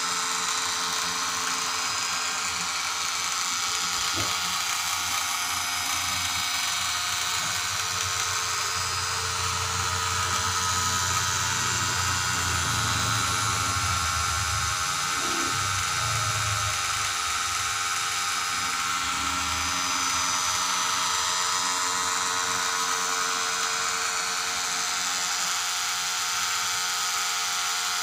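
Small electric motor running steadily with an even, buzzing whine.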